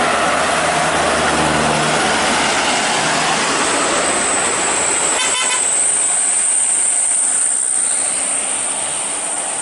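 Steady vehicle noise, like a bus running. There is a short rattle of clicks about five seconds in, and a thin high whine from the middle on.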